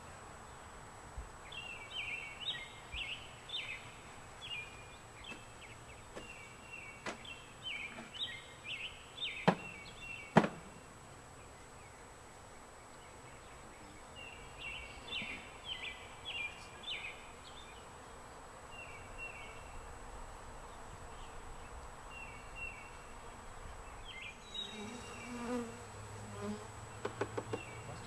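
Honeybees from a captured swarm buzzing around an open hive, with two sharp knocks a little under halfway through.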